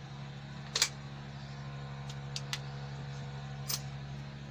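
A few short, sharp metallic clinks of a socket and hand tools being handled, the loudest about a second in and another near the end, over a steady low hum.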